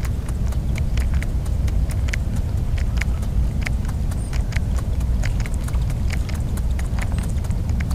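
Irregular sharp clicks, two or three a second, over a steady low rumble.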